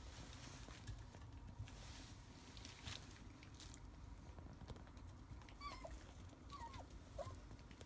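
Faint pattering of rough collie puppies' paws on pet pads. Near the end come three short, high puppy whimpers, each falling at the tail.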